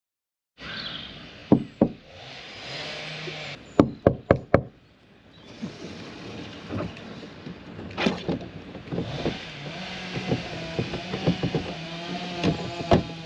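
Sharp knocks: two about a second and a half in, then a quick run of four about four seconds in, followed by a busier spell of lighter knocks and clatter. A steady hum comes in during the last few seconds.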